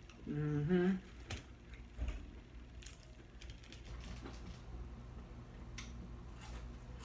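A short hummed vocal sound, two notes with the second a little higher, followed by a few scattered light clicks and taps over a steady low hum.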